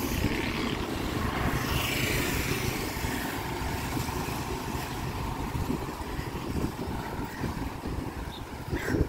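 Wind buffeting the microphone of a camera carried on a moving bicycle, heard as a steady, uneven low rumble.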